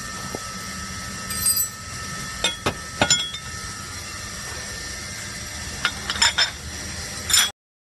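Metal parts clinking and clicking as a machine's circular cutting blade, its flange and screws are taken off and set down on a metal surface. A dozen or so sharp clinks come in small clusters, the loudest near the end, over a steady hum. The sound cuts off suddenly just before the end.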